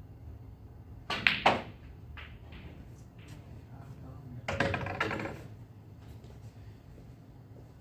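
Snooker balls clicking: about a second in, two sharp clicks in quick succession as the cue tip strikes the cue ball and the cue ball hits an object ball. A longer clatter follows about three seconds later.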